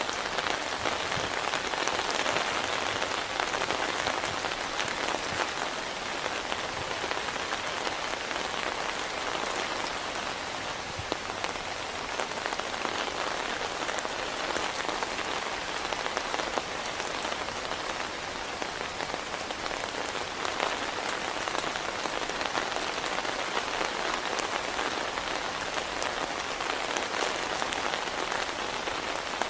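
Heavy rain falling steadily, a dense hiss dotted with the ticks of individual drops striking a surface.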